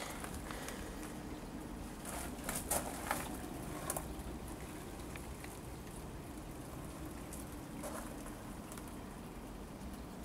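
Brief rustles and clicks from a handheld camcorder moving close through garden foliage, clustered about two to four seconds in and once more near the end, over a steady low background noise.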